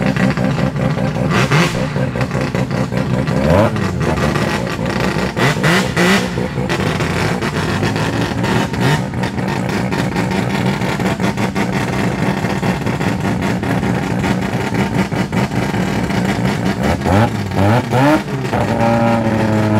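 Modified muscle-car engines and a Mazda rotary engine idling and revving as cars roll slowly past one after another. The engine note rises and falls with blips of the throttle, about three and a half seconds in and again near the end.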